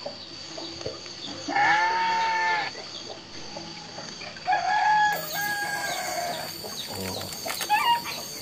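Rooster crowing twice: once about a second and a half in, and again near the middle with a longer call broken in two.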